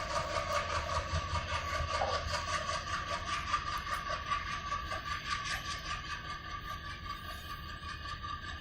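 Container freight wagons of a passing train rolling along the track, with a steady rumble and regular wheel clatter over the rail joints and a steady high tone running under it, fading gradually as the train moves away.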